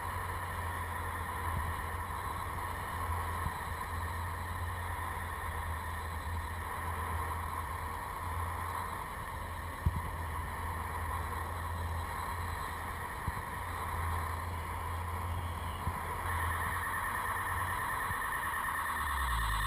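Airflow buffeting the microphone of a harness-mounted camera during a paraglider flight: a steady low rumble of wind noise with a faint steady higher hum over it, the rumble easing off near the end.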